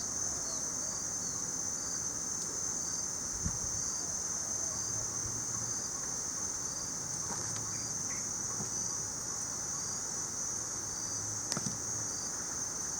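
Insects, crickets or similar, trilling steadily and high-pitched, with short chirps repeating about twice a second through the first half. A couple of faint knocks from handling come in the middle and near the end.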